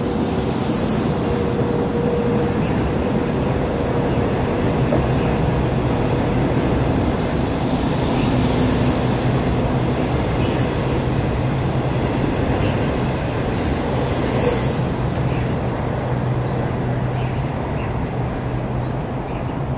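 A train of 25T passenger coaches rolling past and away, a steady rushing wheel-on-rail noise with a low hum underneath.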